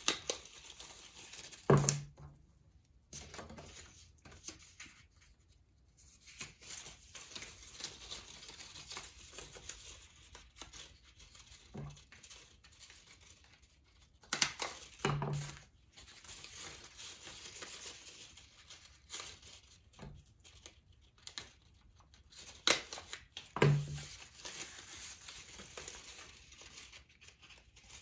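Paper strips rustling and crinkling as they are bent into loops for a paper chain, with a few sharp stapler clacks as loops are stapled shut, near the start, a quarter of the way in, about halfway, and again near the end.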